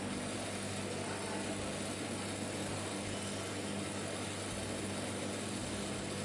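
Coffee roaster running with green coffee beans churning in its stainless steel bowl: a steady motor hum under the even hiss of the tumbling beans.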